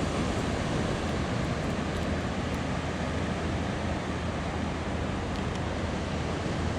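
Steady ocean surf washing, with wind noise on the microphone.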